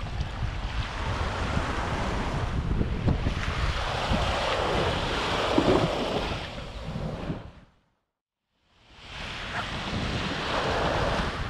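Small waves washing up on a sandy beach, with wind buffeting the microphone. The sound fades out completely a little past halfway and fades back in about a second later.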